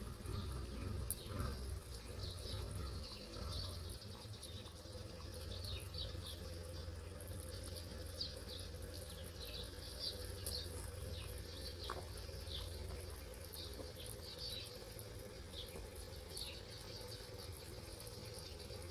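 Faint outdoor ambience: scattered short, high chirps over a steady low rumble.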